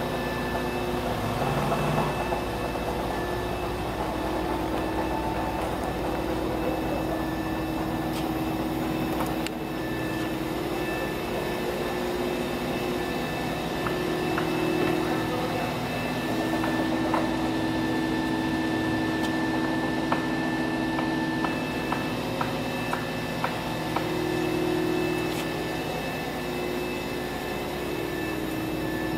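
Volvo EC220EL excavator running steadily, its engine and hydraulics working as the upper structure swings round, with a few light clicks in the second half.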